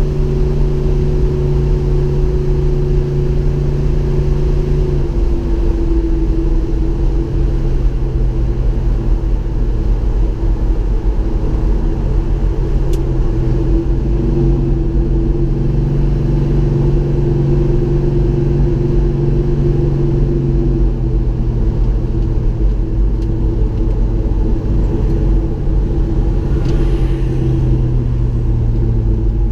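1969 Dodge Coronet Super Bee's V8 running as the car cruises, a steady low exhaust note over wind and road noise, its pitch dropping about five seconds in and shifting again later.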